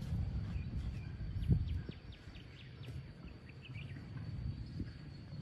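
Outdoor ambience: low rumbling noise with one dull thump about one and a half seconds in, and faint short bird chirps over a thin steady insect tone.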